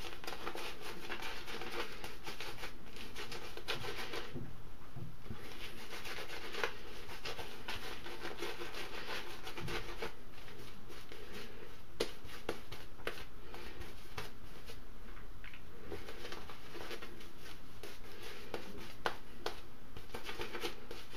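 Synthetic shaving brush whisking shaving-soap lather in a wooden bowl, a steady wet scratching and rubbing with the odd sharper click. The lather is being whipped up after extra water was worked in to make it more watery.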